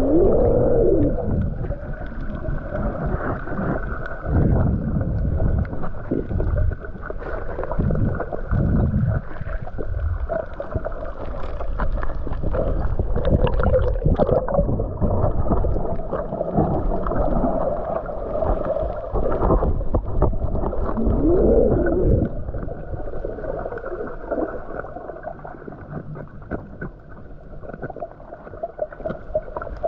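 Muffled water churning and gurgling with irregular low rumbles and a few brief sliding sweeps in pitch.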